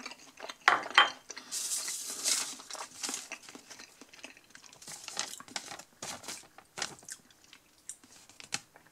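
Two sharp knocks about a second in, then a paper receipt rustling and crinkling as it is handled, mixed with chewing.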